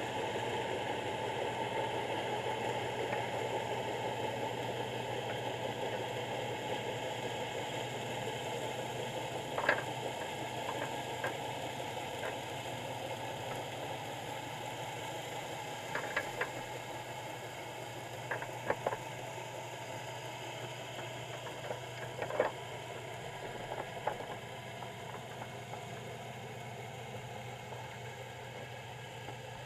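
Underwater ambience heard through a waterproof camera housing resting in a crab trap: a steady muffled hiss over a low hum. A few sharp clicks and taps are scattered through the middle.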